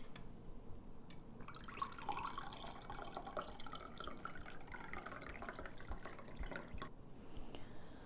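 Milk cooked with oats pouring through a sieve into a glass, trickling and dripping; it starts about a second in and stops near the end.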